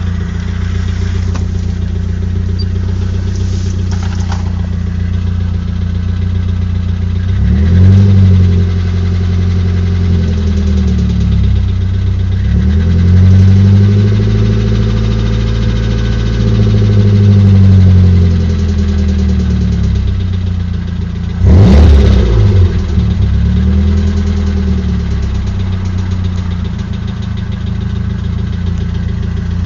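Nissan SR20DET turbocharged 2.0-litre four-cylinder engine idling and being revved up and back down several times, with one quick, sharp rev a little past two-thirds of the way through. It is filmed for its knocking noise, a sign of an internal engine fault.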